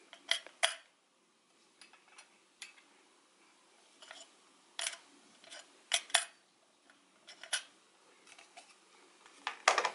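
Separate sharp clicks and light taps as the small magnetic whisk of a Nespresso Aeroccino 3 milk frother is handled inside its jug, lifted and snapped back onto the magnetic spindle. There are about seven clicks spread out, two of them close together near the middle.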